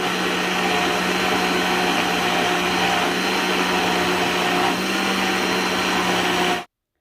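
Countertop blender running steadily at full speed, blending a thin rice-flour and tapioca batter, with a constant motor hum under the whirring. It switches off abruptly near the end.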